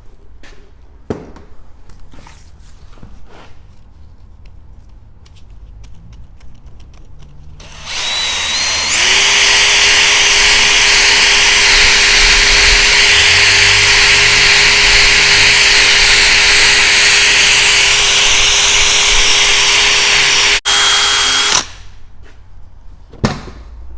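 Cordless drill with a polishing pad buffing rubbing compound on a plastic headlight lens. It starts about a third of the way in, speeds up within a second to a steady whine, cuts out for an instant, then runs on and stops a couple of seconds before the end.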